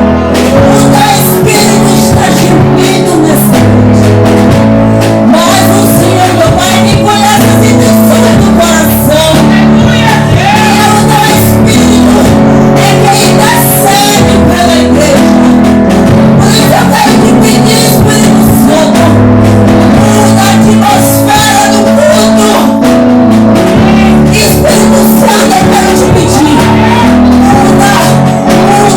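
Live worship music: a band playing held chords over a bass line, with a voice singing over it.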